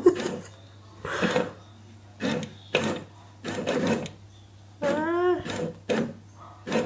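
Motorized cat toy, a plastic cheese with mice that pop in and out of its holes, running in short mechanical bursts about once a second. A brief pitched call rises and falls about five seconds in.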